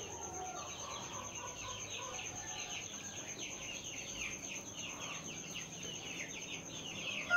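A brood of young kampung chicks (Indonesian native chickens) peeping continuously: a dense chorus of short, falling high peeps, over a thin steady high-pitched whine.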